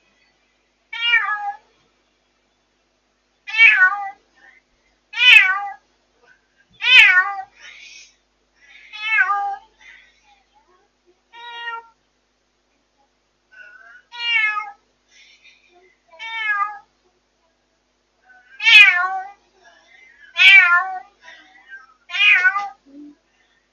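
Cats meowing loudly and over and over, about a dozen long wavering calls, one every couple of seconds. The calls are the night crying of a newly rescued former stray cat caged indoors, typical of a cat just taken in, and the household's resident cats join in. The calls distort on the monitor camera's microphone.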